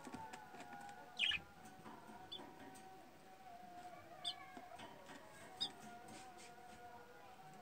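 Pet budgerigars giving short, high chirps, four in all, the loudest about a second in, over a faint steady wavering tone.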